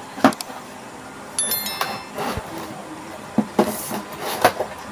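Cardboard boxes being handled and stacked, with light knocks, clicks and rubbing. There is a short high beeping about a second and a half in.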